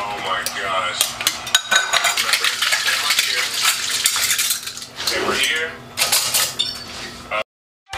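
Dishes being washed by hand: metal spoons and cutlery clinking against ceramic plates and bowls, with sponge scrubbing and water from the tap. It cuts off suddenly to silence shortly before the end.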